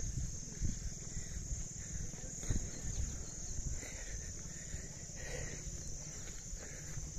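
Insects chirring steadily in a high, unbroken band, over a low rumble with occasional soft thumps.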